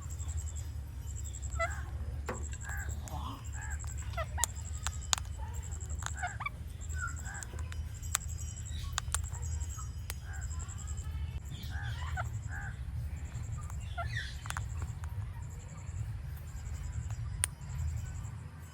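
Indian ringneck parrot making sharp clicks and short chirping calls, scattered irregularly over a steady low hum.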